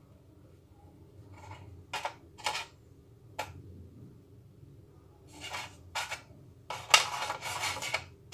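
Hand-handling noises from Oreo cookies and kitchenware being moved about: scattered light clicks and rubs, then a denser rustling scrape lasting about a second and a half near the end.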